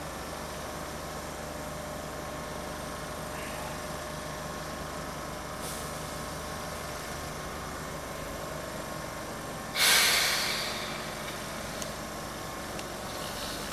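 Enshu Railway No. 1003 electric train standing at the platform with a steady hum from its equipment. About ten seconds in comes a sudden loud hiss of air from its brakes that fades over about a second, the brakes being released just before it departs.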